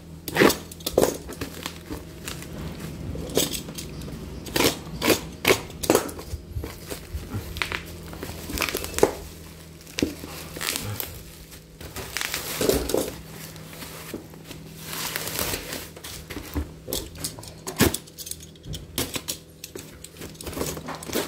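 Plastic courier wrapping crinkling and tearing as a parcel is pulled open by hand, then a cardboard box being cut with a utility knife and opened. Irregular rustles, rips and scrapes throughout.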